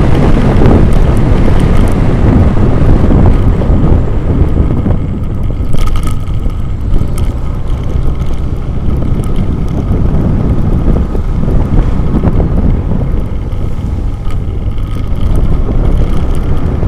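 Wind buffeting the action camera's microphone at road speed, a loud steady rumble with a vehicle's engine running underneath.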